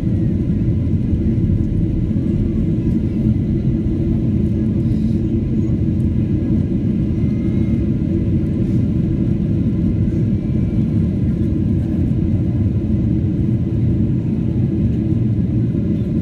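Steady low rumble inside an airliner cabin, with engine and airflow noise heard through the fuselage as the plane descends for landing.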